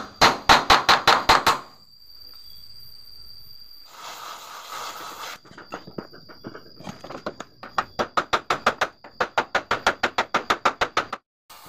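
Rapid hammer blows on steel at the car's door hinge mount, about five a second: a quick burst at the start, then a longer run of strikes from about seven seconds in. A short hiss comes about four seconds in.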